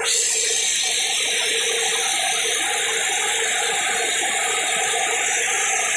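A diesel generator engine, a John Deere, running steadily with a continuous mechanical clatter.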